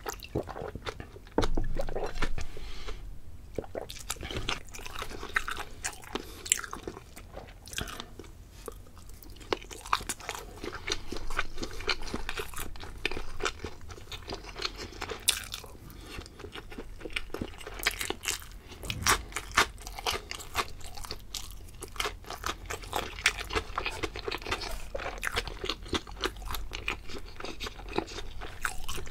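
Close-miked chewing of sushi: wet mouth sounds and a dense, irregular run of small crisp clicks, with a louder stretch of chewing about a second and a half in.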